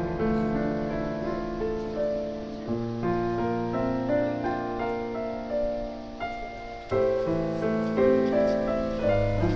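Background music: gentle piano melody with sustained chords.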